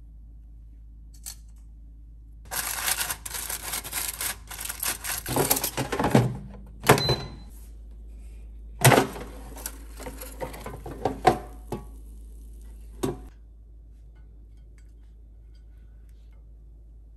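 Objects being handled and knocked about: a few seconds of dense, rapid clatter, then several separate sharp knocks and thunks, over a faint low hum that stops near the end.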